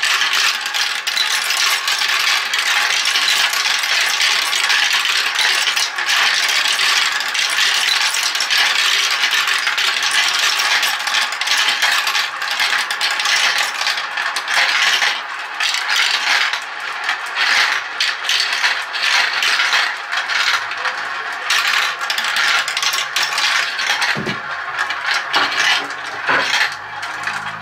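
Many marbles rolling and clattering through a plastic Galt marble run's tracks and funnels: a dense, continuous rattle of small clicks that thins out into scattered separate clicks over the second half.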